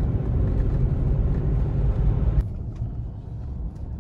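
Steady low road and wind rumble of a moving vehicle. It drops suddenly about two and a half seconds in to a quieter road hum heard inside the cabin.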